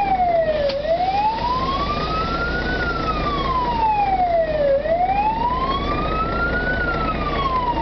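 Fire engine's wailing siren, rising and falling in pitch with about one full cycle every four seconds, over the steady rumble of the moving vehicle.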